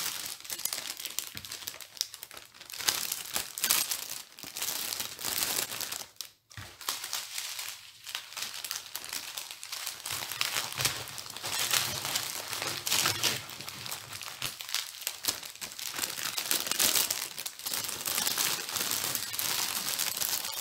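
A small plastic bag crinkling and rustling as it is handled and filled with loose diamond-painting drills, with many small clicks from the drills, broken by a brief pause about six seconds in.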